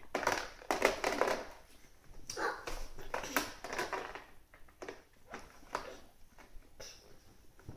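Small knocks and rustles from young children handling plastic toys on a foam floor mat, loudest and thickest in the first second or so, then sparser.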